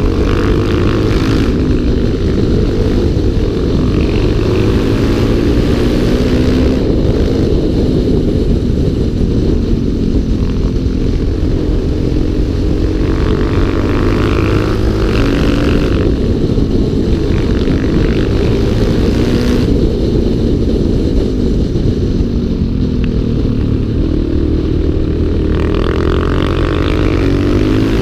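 Single-cylinder four-stroke motorcycle engine heard on board at speed, its revs rising and falling again and again through a run of bends.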